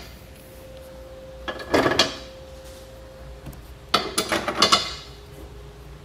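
Steel bolts being dropped into the holes of a steel fifth-wheel base rail, clinking against the metal. There are two bursts of clinks, about a second and a half in and again around four seconds in; the first leaves a short metallic ring.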